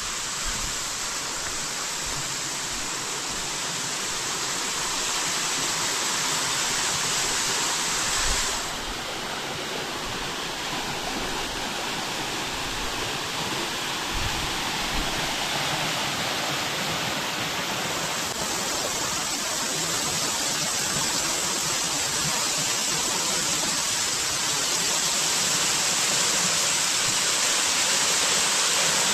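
Waterfall with a good flow of water, falling and splashing in a continuous rush. The rush dulls a little about eight seconds in and brightens again some ten seconds later.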